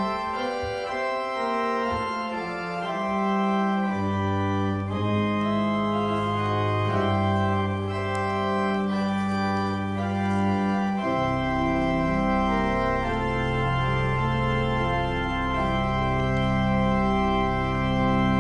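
Organ music: slow, sustained chords that change every few seconds over a deep held bass line.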